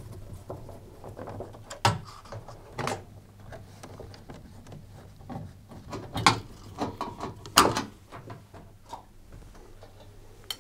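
Screwdriver undoing the screws of a tumble dryer's front panel: scattered clicks and knocks of the tool, screws and panel, with a handful of sharper ones spread through.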